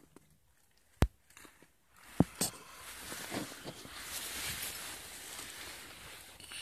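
Close handling noise inside a survival shelter: a single sharp click about a second in, two knocks a little later, then steady rustling of fabric and dry leaves as things are moved about.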